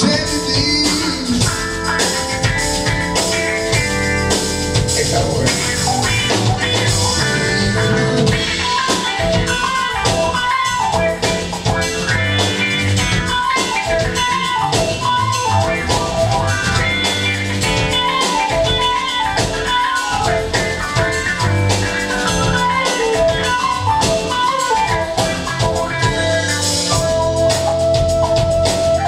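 Live blues-rock band playing, with electric guitar, drum kit and keyboard. About eight seconds in a lead melody of bent, sliding notes comes to the front over the drum beat.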